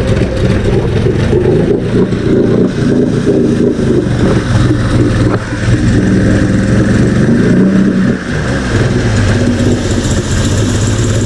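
Mercury 50 two-stroke outboard motor running in a water test tank on a freshly fitted fuel filter, its speed rising and falling before it settles into a steadier run about eight seconds in.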